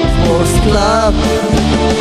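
Loud music, with a melody line that slides up and down in pitch about a second in.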